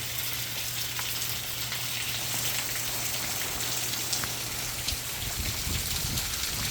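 Heavy rain falling steadily, with single drops ticking now and then.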